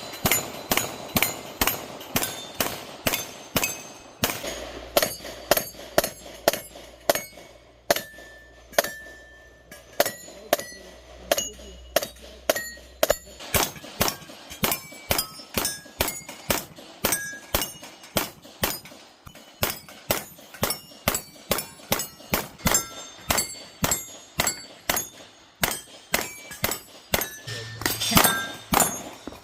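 CZ TS2 pistol firing rapid shots at steel targets, about two a second in strings with short pauses, with the steel plates ringing with a clink after many of the hits.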